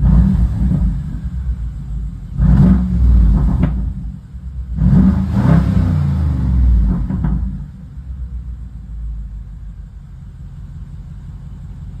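BMW N63TU 4.4-litre twin-turbo V8 revved up twice, reaching about 4000 rpm, then settling back to a quieter idle, heard from inside the cabin. The engine is running after a leaking fuel injector was reseated, with no misfire codes.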